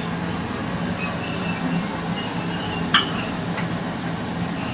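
Chopped onion, garlic and green chilli frying in hot oil in a kadai, a steady sizzle, with a sharp metal clink from the spatula against the pan about three seconds in.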